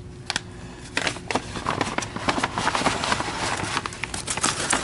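Thin, translucent old paper vacuum bags rustling and crinkling as they are handled: two sharp clicks at first, then from about a second in a dense crackle that grows louder.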